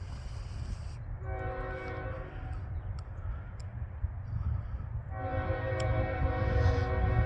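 Locomotive air horn of an approaching Canadian National freight train sounding two blasts, a short one about a second in and a longer one starting about five seconds in and still going at the end. A steady low rumble runs underneath.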